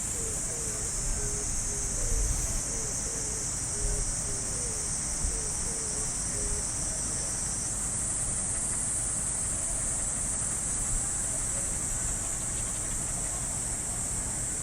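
Cicadas shrilling in a steady high-pitched chorus, one part of it dropping out a little over halfway. A faint run of short low notes repeats about twice a second during the first half, over a low rumble.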